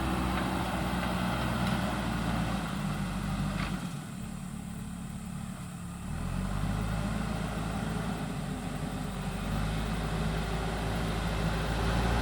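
JCB 3DX backhoe loader's diesel engine running steadily. It drops quieter for about two seconds near the middle, then picks back up and grows louder toward the end.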